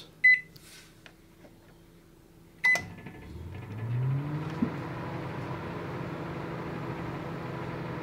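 Microwave oven keypad beeping twice, then the oven starting up: a hum that rises in pitch over about a second and settles into a steady running hum.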